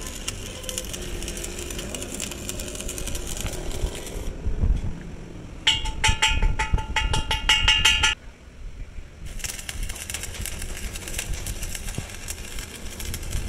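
Stick (arc) welding on a steel truck wheel rim: the arc's steady crackling sizzle. Around the middle it gives way to about two seconds of rapid metal strikes, roughly five a second, that ring, before the welding crackle resumes.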